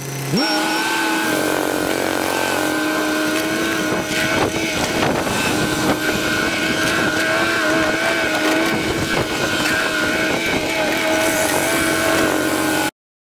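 Cat 304 mini excavator's diesel engine revving up in the first moment, then running steadily at working throttle while it digs, with a few knocks from the bucket; it cuts off suddenly near the end.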